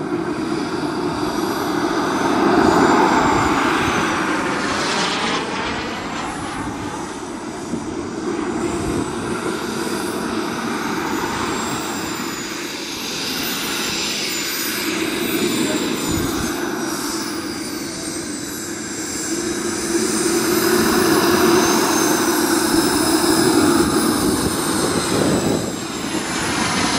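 Turbine engine of a radio-controlled model jet running at low power while it taxis, heard from a camera inside the model's cockpit. A high whine rises and falls with the throttle over a steady rush, and it swells louder a few times.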